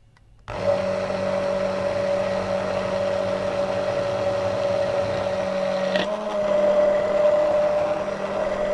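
Immersion blender running in a metal beaker, mixing egg and grated cheese into a thick sauce. Its motor hum starts about half a second in and holds a steady pitch, with a brief knock around six seconds after which the pitch shifts slightly and the sound gets a little louder.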